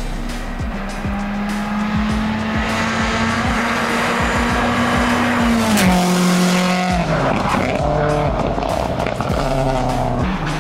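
Audi A1 rally car driven hard on a tarmac stage, its engine held high in the revs with tyres squealing. The engine note drops in two steps about six and seven seconds in as it slows for the corners.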